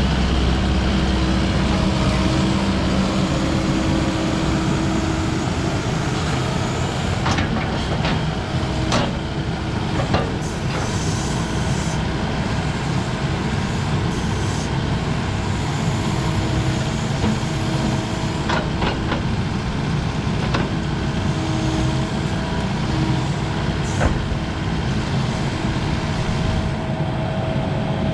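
Kubota KX080 excavator's diesel engine running steadily under hydraulic load, with a handful of sharp knocks and clanks scattered through as the bucket grabs and breaks chunks of concrete foundation.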